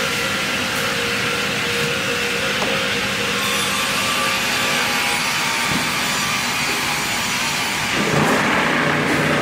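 Industrial sawmill line running: a steady machinery noise with saw sound from the log-processing machines. It grows louder and rougher about eight seconds in.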